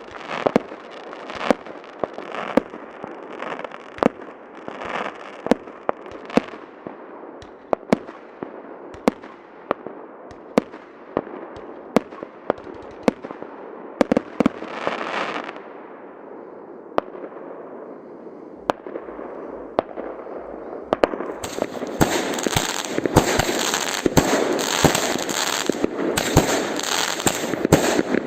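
Fireworks going off: a steady run of sharp bangs over a crackling hiss, turning denser and louder with rapid crackling about three-quarters of the way through.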